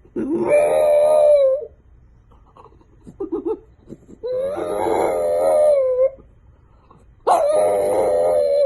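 A dog howling three times, each howl long and held at a steady, slightly wavering pitch, with a few faint short yips between the second and third.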